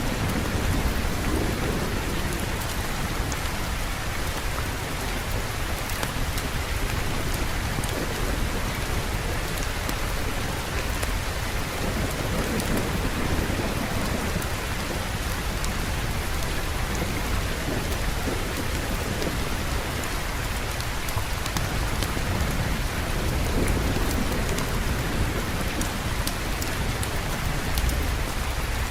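Steady heavy rainfall with a low, rolling thunder rumble that swells and fades underneath.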